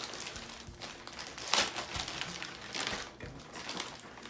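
Packing paper crumpling and rustling as it is pulled out of a shipping box, in a run of irregular bursts with the loudest about a second and a half in.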